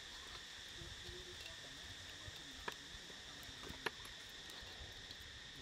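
Insects chirring in a steady high drone, with two sharp clicks a little over a second apart midway through.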